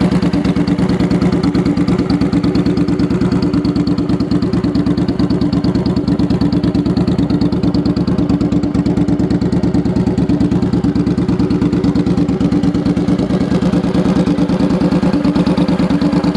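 Suzuki Boulevard C50 V-twin idling steadily through a Blacksmith Brawler Six Shooter 2-into-1 race exhaust, a loud, even, rapid pulsing at a constant pitch.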